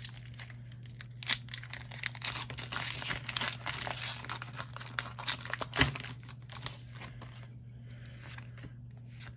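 Foil wrapper of a trading-card booster pack being torn open and crinkled by hand, a dense crackling that dies away about seven and a half seconds in, with a single thump about six seconds in.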